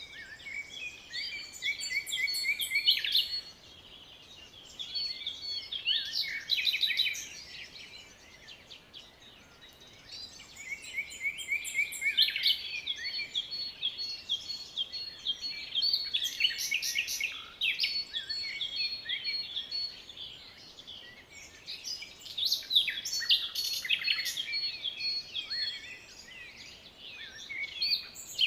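Songbirds singing in bouts of rapid, high chirps and trills, several phrases overlapping, with short quieter pauses between bouts.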